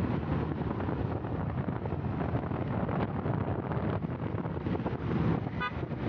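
Wind buffeting the microphone over the steady rumble of a moving vehicle on a paved road, with a short horn toot near the end.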